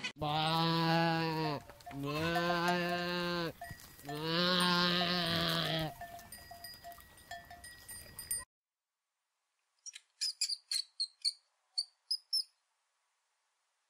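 Goat kid bleating three times in long, drawn-out calls. After a short silence comes a quick run of about ten high-pitched mouse squeaks.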